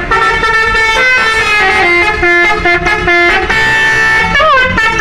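Tour bus's 'telolet basuri' musical horn playing a melody of held notes that step up and down, with a bending glide about four and a half seconds in.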